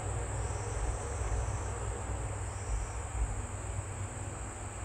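Steady high-pitched chirring of insects, with a softer second call coming and going a few times, over a low rumble.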